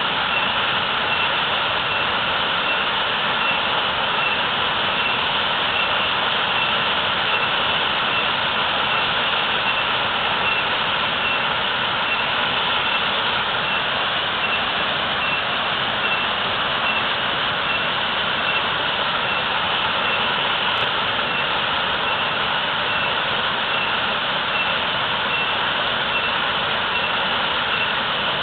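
Waterfall pouring heavily: a steady, even rush of falling water.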